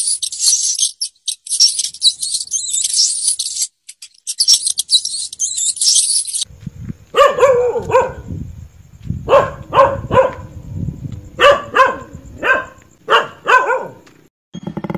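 A scratchy, high-pitched hissing in short choppy runs for about six seconds, then a Siberian husky barks, about nine short barks spread over seven seconds.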